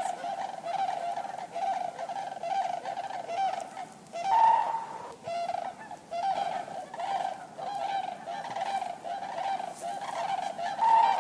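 Common cranes calling: a quick run of short, repeated calls at a fairly steady pitch, with a louder, higher call about four seconds in and another near the end.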